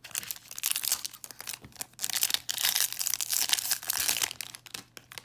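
Trading card pack wrapper being torn open and crinkled by hand: a short spell of crinkling, then a longer one from about two seconds in.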